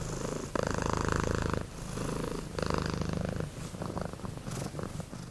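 Domestic cat purring close up, in rhythmic breaths of about a second each, growing weaker over the last couple of seconds.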